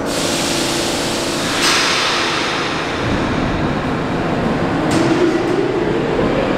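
An R46 subway train approaching along the track into an underground station, its wheels and motors making a steady rumble on the rails. A hissing wash of noise comes in about a second and a half in, and a tone rises slightly near the end as the train nears the platform.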